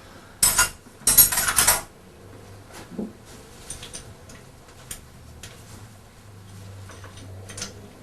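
Hand tools clattering against metal on the engine mount: two loud rattling bursts about half a second and a second in, then scattered light clicks and taps.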